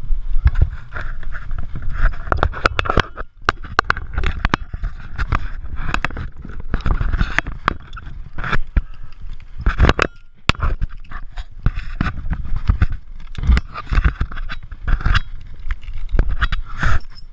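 Handling noise on a body-worn GoPro: harness webbing and clothing rub and scrape against the camera, with many irregular clicks and knocks over a low rumble, briefly easing about three seconds in.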